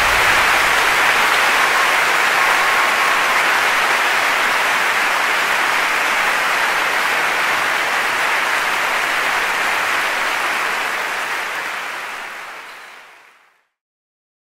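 Audience applause, steady at first and then fading out near the end.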